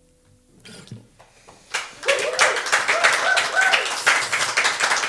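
The last acoustic guitar chord dies away, then, about two seconds in, a few people start clapping, with voices over the clapping.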